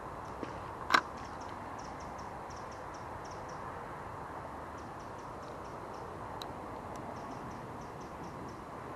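Spinning reel wound slowly in short spells, giving runs of light, quick ticks over a steady hiss, with one sharp click about a second in.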